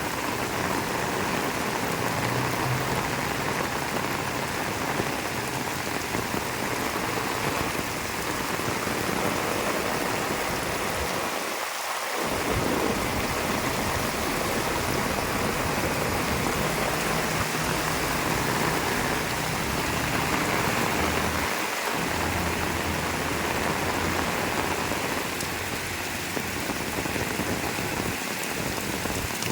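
Heavy rain pouring steadily, a dense even hiss of rain on surfaces.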